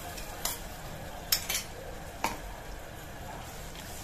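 Tomato and coconut paste sizzling in hot oil with fried onions in a pressure cooker, with four sharp knocks of a spatula against the pot, the loudest about a second and a half in.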